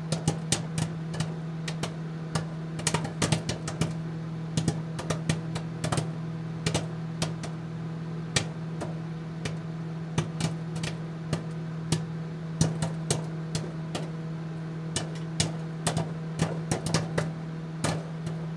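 Crackle sound effect on the end card: a steady low hum under irregular sharp clicks and pops, like worn film or record crackle.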